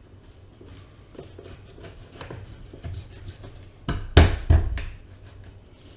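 Chef's knife cutting through raw chicken on a cutting board, with light scraping at first, then a few heavy knocks about four seconds in as the blade chops down hard onto the board. The knife is dulled, so it takes force.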